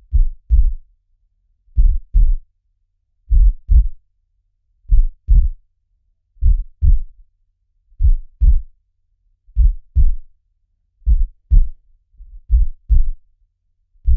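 Heartbeat sounds: a steady double thump (lub-dub), the two beats of each pair close together, repeating about every one and a half seconds, with silence between the pairs.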